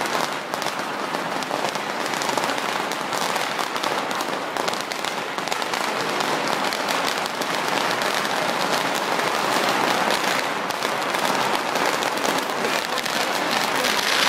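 Firecrackers going off in a rapid, continuous crackle, a dense stream of small pops.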